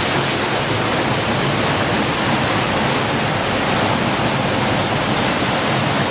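Steady rush of an underground cave stream: running water flowing through the streamway passage at an even level.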